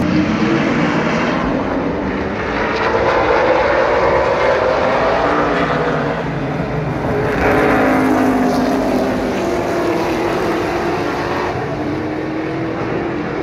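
A pack of stock cars racing together on a paved short oval, several engines running at once. The engine note glides up and down as the cars accelerate and pass by.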